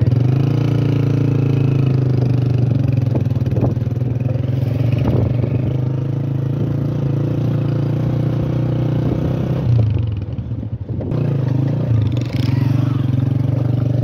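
Motorcycle engine running steadily under way, with a few short knocks early on from the rough ride; the engine note drops briefly about ten seconds in, then picks up again.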